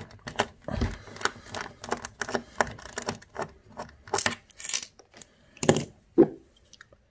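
Small screwdriver turning a screw out of a TV's sheet-metal back frame: a run of irregular metallic clicks and ticks. Near the end there are two louder knocks as the screwdriver is set down.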